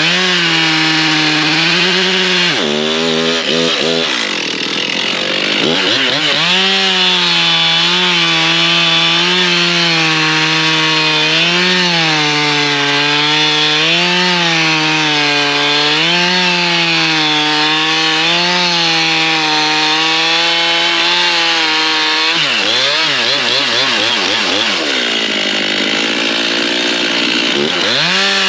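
Stihl MS 391 two-stroke chainsaw at high revs cutting through hardwood limbs, its engine note dipping and recovering every couple of seconds as the chain bites into the wood. The revs fall back and climb again a few seconds in, and twice more toward the end.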